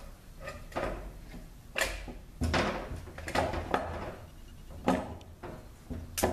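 Knocks and clacks of transmission parts and hand tools being handled on the bench during a valve body install: a string of separate sharp strikes, roughly one a second.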